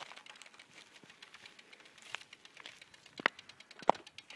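Camera handling noise: faint rustling and scattered light clicks, with two sharp clicks a little after three seconds in and again just before four seconds.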